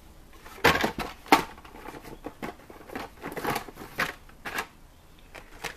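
Blister-carded Hot Wheels cars being handled in a plastic tub. The plastic blisters and cardboard cards clack and crinkle in a string of short, uneven bursts.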